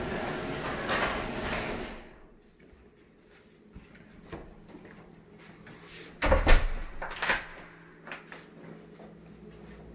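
Residential garage door opener running as the overhead door closes, its motor hum stopping abruptly about two seconds in. Around six seconds in, a heavy door knock followed by a second sharper knock, the loudest sounds, as a door is shut, then a few faint clicks.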